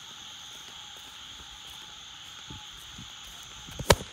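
A steady, high-pitched nighttime wildlife chorus, calling insects and frogs in a continuous drone. A few soft thuds come in the second half, and a sharp knock just before the end is the loudest sound.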